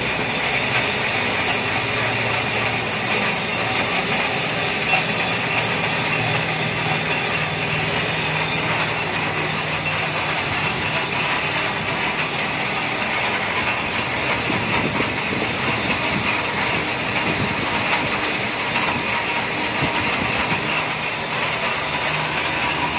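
Engine lathe turning a long metal shaft: the cutting tool shears steadily along the spinning bar, a constant metallic hiss over the hum of the lathe running.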